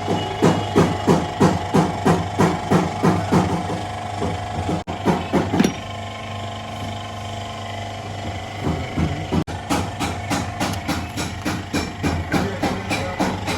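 Repeated sharp knocking strikes, about three a second, like hammering, over a steady low hum. The strikes pause for a few seconds around the middle, leaving only the hum, then start again.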